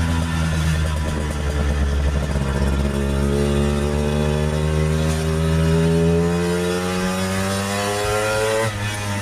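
1964 Lambretta Series 3 scooter's two-stroke single-cylinder engine under way, its pitch climbing steadily for several seconds as it accelerates, then dropping suddenly near the end.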